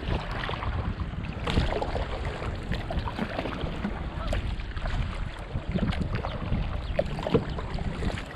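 Water splashing and lapping around a kayak as it is paddled, in short irregular splashes, over a steady low rumble of wind on the microphone.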